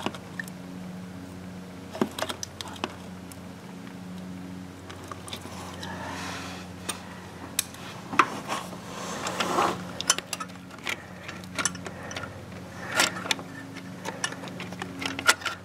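Scattered clicks and scraping of metal parts handled by hand as the distributor housing is twisted back and forth in its bore to set the rotor position, over a steady low hum.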